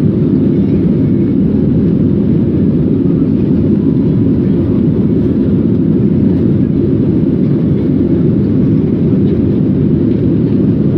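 Airplane cabin noise in flight: a steady low-pitched roar of engines and airflow that holds even throughout.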